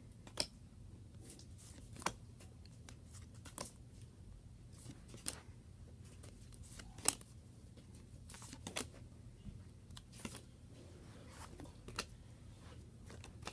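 Trading cards handled and flipped through one by one, each card giving a sharp, faint snap of card stock about every one and a half to two seconds, over a steady low hum.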